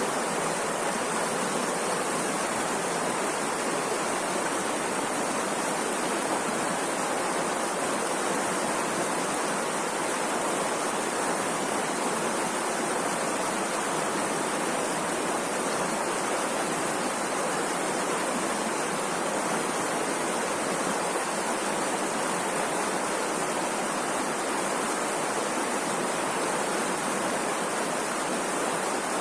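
Rushing river water, a steady, unbroken roar of flowing water that holds an even level throughout.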